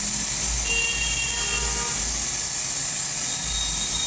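Steady hiss of the vacuum mixing equipment running, with a low rumble that comes and goes.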